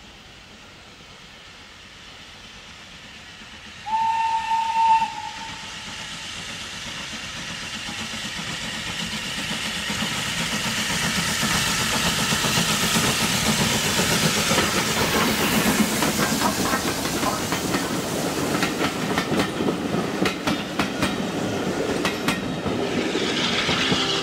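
LSWR T3 class 4-4-0 steam locomotive sounding one short whistle about four seconds in. It then approaches and passes with its train, its running noise growing steadily louder, and near the end the coach wheels click over the rail joints as the train goes by.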